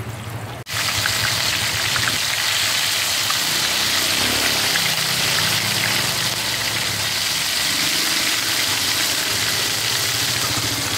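Battered small crabs deep-frying in a pan of hot oil: a loud, steady sizzle with small crackles, which starts abruptly under a second in, over a low steady hum.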